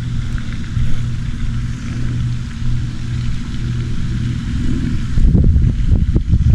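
A motor running with a steady low hum, with wind buffeting the microphone and a few short knocks starting about five seconds in.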